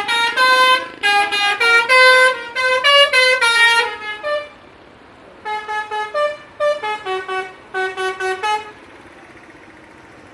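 Bus 'telolet' musical air horn playing a quick tune of short toots at changing pitches. A run of about four seconds, a brief pause, then a second run of about three seconds.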